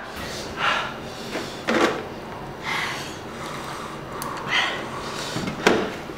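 A woman blowing air out hard through pursed lips, about five short breathy puffs spread across a few seconds, to cool a mouth burning from extremely spicy ramen.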